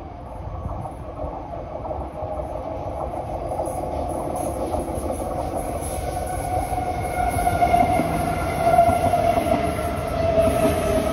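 C151B electric MRT train approaching and running past close by, its wheel and running noise growing steadily louder. A motor whine comes in over the rumble in the second half and falls slightly in pitch as the train slows on arrival.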